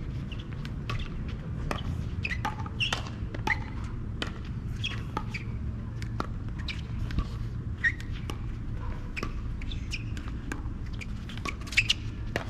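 Pickleball paddles striking a plastic ball in a doubles rally, a string of sharp irregular pops, with sneakers squeaking on the hard court between shots. A steady low rumble runs underneath.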